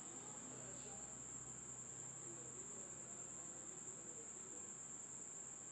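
Faint bubbling of sugar syrup boiling in a pan, under a steady high-pitched whine.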